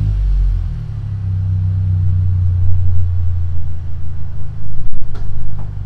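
Mitsubishi Lancer four-cylinder engine with a new aftermarket exhaust, idling just after start-up. It is loud at first, settles within about a second, and then runs on with a low, pulsing exhaust note.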